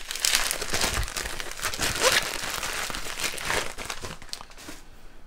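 Plastic bag crinkling and rustling as a wrapped beer bottle is pulled out of it, dying down near the end.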